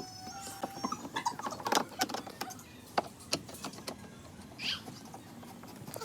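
Scattered light clicks and knocks from handling parts and tools, with a short high squeak a little before the end.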